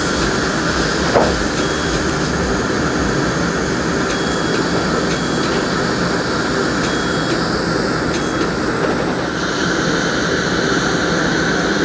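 Dental high-volume suction running with a steady rushing hiss. Short high electronic beeps sound on and off several times over it, and there is one small click about a second in.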